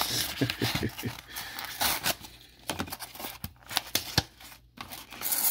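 A cardboard trading-card box being torn open by hand and its contents worked out: tearing and scraping of paperboard with irregular clicks and knocks.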